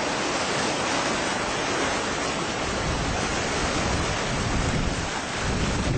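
Rough sea surf breaking and washing in a strong wind: a steady, dense rush of noise, with gusts buffeting the microphone in low rumbles.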